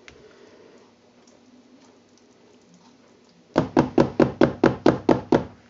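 About ten quick knocks in a row, some five a second, lasting about two seconds: a spatula tapped against the rim of a plastic measuring jug to shake off soap batter.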